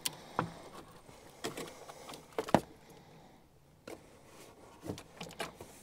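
Scattered light clicks and knocks of a truck's air filter housing being unclipped and opened by hand to check for a mouse nest, the sharpest knock about two and a half seconds in.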